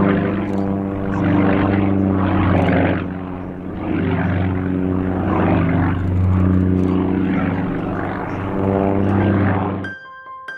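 Sukhoi Su-31M aerobatic plane in flight, its nine-cylinder radial engine and propeller giving a steady drone that swells and fades several times. The engine sound cuts off near the end and light piano-like music begins.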